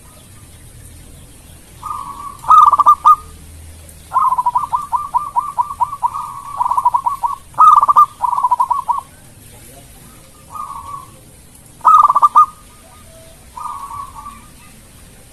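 Zebra dove (perkutut) cooing in several bouts of quick staccato notes separated by short pauses. The longest bout is a rapid run of about ten notes a second, a few seconds in.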